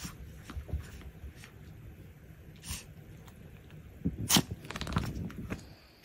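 Long-haired Chihuahua stirring and climbing out of a plush donut bed: soft rustling and scuffling, with one short, sharp sneeze about four seconds in, followed by a flurry of small scuffles.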